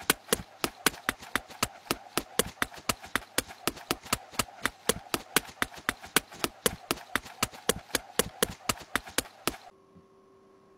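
Rapid, evenly spaced clicking ticks, about five a second, that stop sharply near the end, leaving a faint steady hum.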